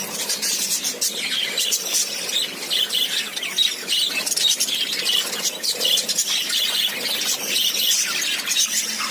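Many birds chirping and squawking at once in a dense, continuous chatter of short, shrill calls.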